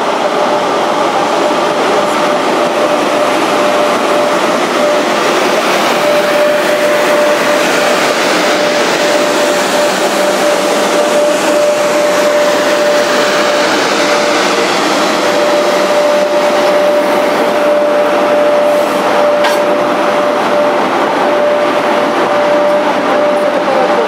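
An EP1M electric locomotive and its passenger coaches rolling slowly past on arrival at a station: a loud, steady noise of wheels on rail with a steady high whine running through it.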